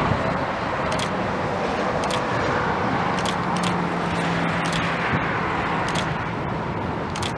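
Union Pacific EMD SD70ACe diesel locomotives running steadily as they approach at the head of an intermodal train, with a steady hum in the middle and a few faint ticks.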